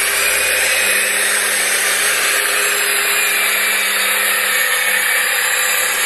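A LiuGong 414 motor grader's diesel engine running steadily as it grades soil, heard under a loud, even hiss.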